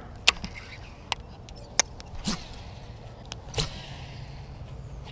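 Several separate sharp clicks and knocks from fishing tackle and rod handling on a boat deck while a cast is made. A faint low steady hum comes in about three and a half seconds in.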